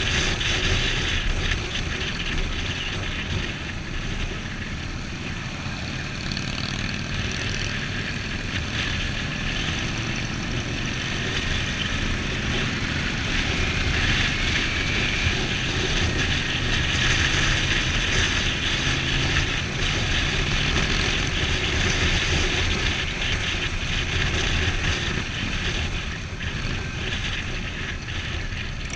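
Wind rushing over a helmet-mounted camera on a sport motorcycle riding at road speed, with the bike's engine running underneath, steady throughout.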